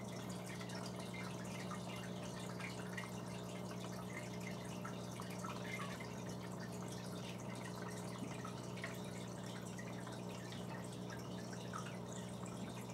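Water trickling with small scattered drips over a steady low hum.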